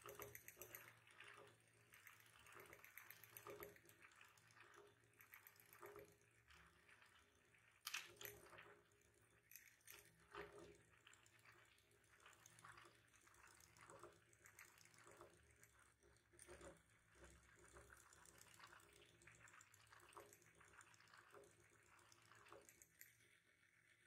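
Near silence: quiet room tone with faint scattered ticks and taps, the sharpest about eight seconds in.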